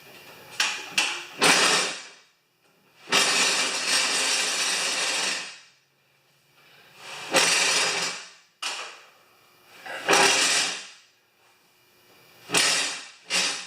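Steel mower deck being dragged and shifted into place under a yard tractor: short knocks early, a long scrape of about two and a half seconds starting about three seconds in, then several shorter scrapes and knocks.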